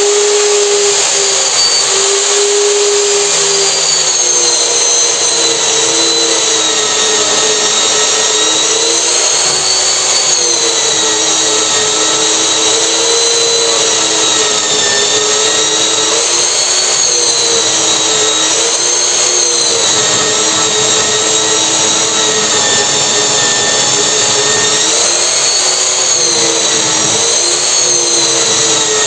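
Handheld portable band saw mounted on a stand, cutting through steel. Its motor runs steadily under load, the whine dipping and recovering in pitch as the blade bites.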